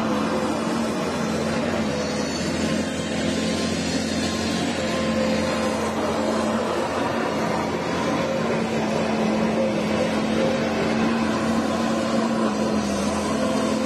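XCMG crawler excavator's diesel engine running steadily under load as the machine digs and swings, a constant drone with an unchanging pitch.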